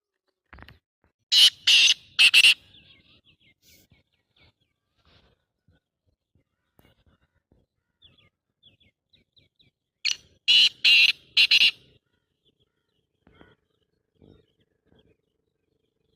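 Black francolin calling: two loud phrases of harsh, grating notes, three notes soon after the start and four more about ten seconds in, with faint short chirps in between.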